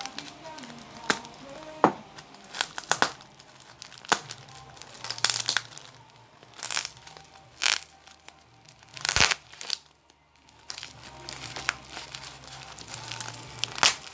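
Green plastic shipping bag handled by hand: irregular crinkling and rustling with sharp crackles, as the bag is squeezed, turned and its corner picked at and pulled open near the end.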